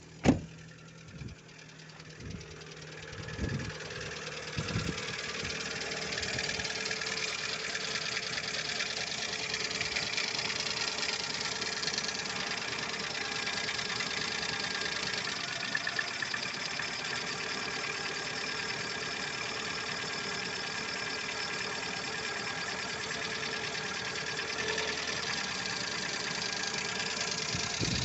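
Lada Largus 1.6-litre engine running at idle with a fast, steady ticking knock from its hydraulic valve lifters. A sharp thump comes right at the start, with a few lighter knocks in the first seconds, and the engine grows louder over the first few seconds before holding steady.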